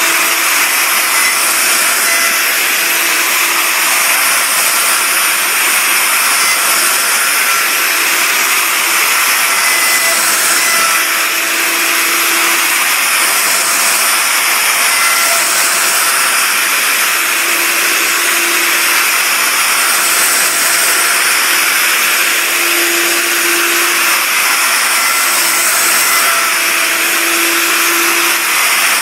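Maktec plunge router running at high speed on a guide-rail sled, its bit cutting into the wood; a steady high-pitched whine and hiss, with a fainter low hum that comes and goes every few seconds.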